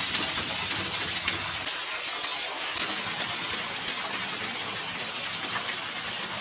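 Hot spring water rushing and splashing: a steady, loud rush of falling water.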